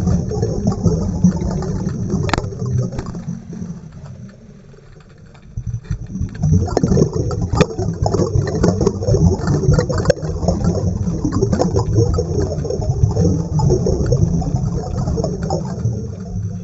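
Low, steady rumbling water noise with crackling and a few sharp clicks, dropping away briefly about a third of the way in before returning.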